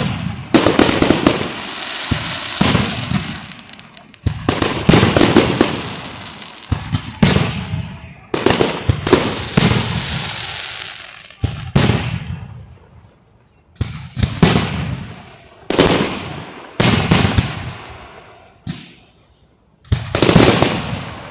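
Aerial firework shells bursting overhead: a dozen or more loud bangs, some in quick runs of three or four, each trailing off in an echo, with brief lulls between volleys.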